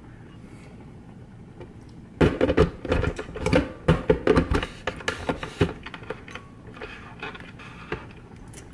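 Glass blender jar with rinse water in it clunking and rattling against the blender's plastic base as it is handled and set in place: a quick, irregular run of knocks for about three seconds, then a few lighter taps.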